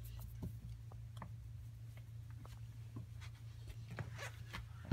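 A cat nibbling and tearing at blades of cat grass: scattered soft clicks and rustles, over a steady low hum.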